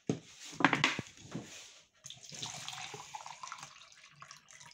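Water being poured. There are a few splashes and glugs at first, then after a short pause a steady pouring stream as a plastic measuring jug fills from a large plastic water bottle.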